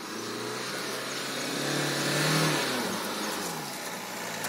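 Renault Duster's 1.5 dCi diesel engine revving under load as the SUV climbs a sandy off-road slope. The revs rise to a peak about halfway through, then drop away.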